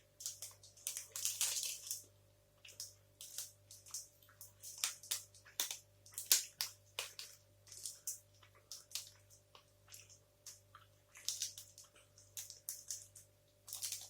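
Close-up mouth sounds of someone chewing a dark chocolate protein bar: irregular wet clicks and soft crunches, with a faint steady hum underneath.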